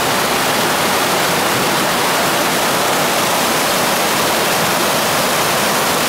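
Waterfall cascading down sloping rock slabs close by: a loud, steady rush of white water.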